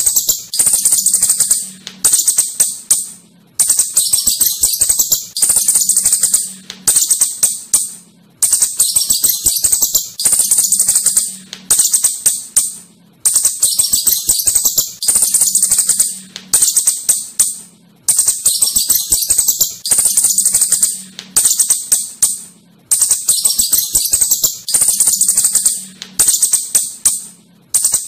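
Asian house shrew (clurut) giving a rapid, high-pitched clicking chatter, in bursts of about one to two seconds that repeat with short pauses.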